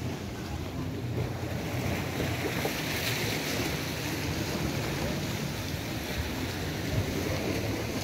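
Sea waves washing against a rocky shore, with wind rumbling on the microphone; the hiss of the wash swells up about two seconds in and eases off a few seconds later.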